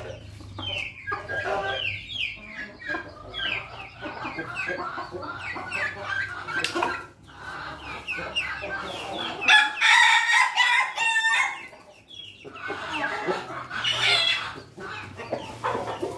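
A flock of young crossbred chickens (pelung, bangkok and ketawa crosses) clucking and giving short falling calls throughout. A rooster crows once, about nine and a half seconds in, for about two seconds; this is the loudest sound.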